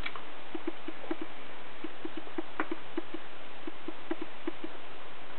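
Hens clucking softly: a string of short, low clucks at an uneven pace, over a steady hiss.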